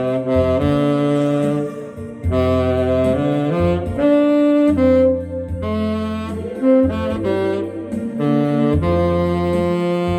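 Saxophone playing a slow melody in long held notes over a backing track with a bass line and keyboard.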